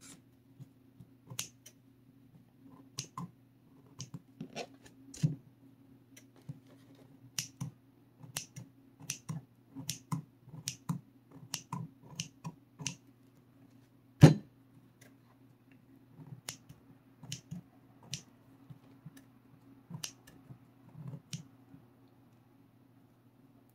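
Scissors snipping off thin, straggly cured strands from a cast lid: a run of short, sharp clicks at irregular intervals, about one or two a second, with one much louder click about two thirds of the way through.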